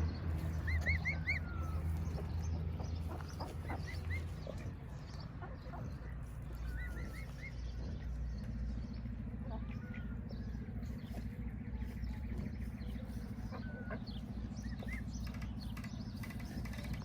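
Birds chirping in quick groups of three or four short rising peeps, thinning out after the first eight seconds, over a steady low hum.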